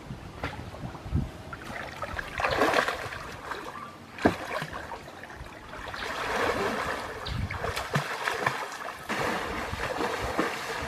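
Pond water splashing and sloshing as a person wades and swims through it, coming in several uneven surges, with a few short sharp slaps on the water, the loudest a little over four seconds in.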